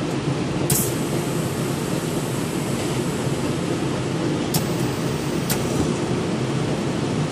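Phone screen laminating machine running with a steady low mechanical noise, with a few sharp clicks, one near the start and two a second apart past the middle, as the press lifts.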